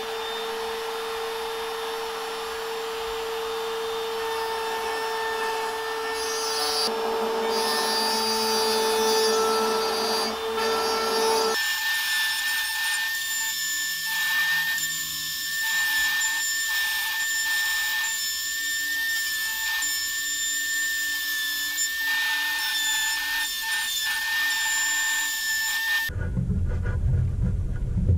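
Compact palm router spinning up and running, its bit cutting a circular groove in hardwood for banding. The pitch of the whine changes about twelve seconds in, and the router stops about two seconds before the end, leaving a low rumble.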